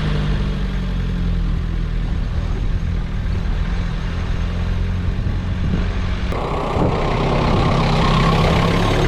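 Truck driving up a dirt road, its engine running steadily with a low hum. About six seconds in, a louder, rougher rush of tyre and road noise sets in and holds.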